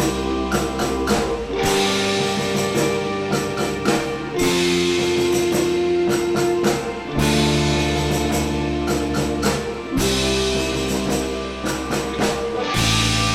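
Rock band playing live without vocals: guitars over bass and drums, the chords changing about every three seconds.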